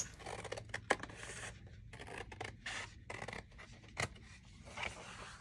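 Scissors cutting through thin cardboard: a run of irregular scraping snips, with a sharper click about a second in and another about four seconds in.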